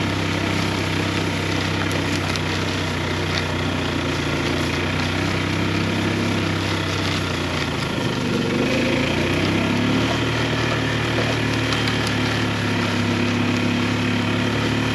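Small vehicle engine running steadily under load while towing a chicken shelter over grass. Its pitch dips about eight seconds in, then settles higher.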